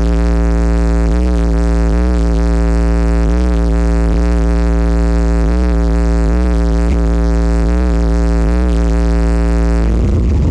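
DJ sound system playing a loud, bass-heavy held synth chord over a deep bass note, with a wobble in it about once a second; shortly before the end it breaks into a different, noisier passage of electronic music.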